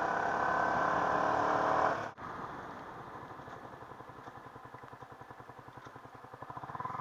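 Yamaha R15 V3 motorcycle's single-cylinder engine running at road speed. After an abrupt cut about two seconds in, it is quieter, pulsing at low revs as the bike slows nearly to a crawl.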